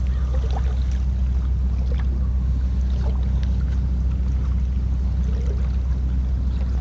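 A steady low rumble with faint water sounds and a few small clicks on the open water.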